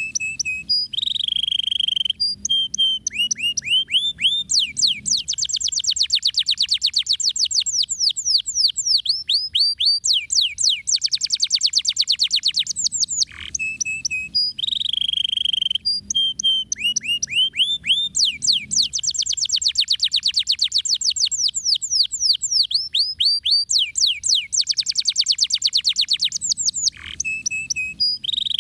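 Domestic canary in full, rolling song: long runs of rapid trills made of quick chirps repeated many times a second, with a few short held notes, and brief breaks near the middle and near the end.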